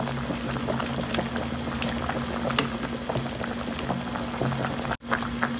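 Beef rib broth at a rolling boil in a large stainless steel pot: steady bubbling and crackling with scattered sharp pops, over a steady low hum.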